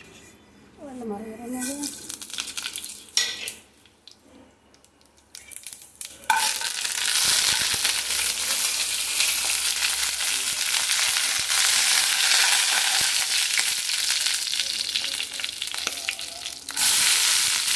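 Mustard seeds and curry leaves hitting hot oil in a kadhai for a tadka: after a few quiet clinks of utensils, loud sizzling and crackling starts suddenly about six seconds in and grows louder again near the end, as the pan is stirred with a steel ladle.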